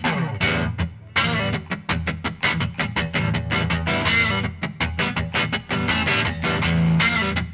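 Rock music with electric guitar playing quick, repeated notes.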